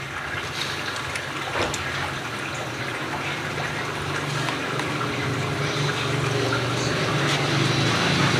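Broth bubbling in a large wok, with a steady low hum underneath that grows slightly louder toward the end.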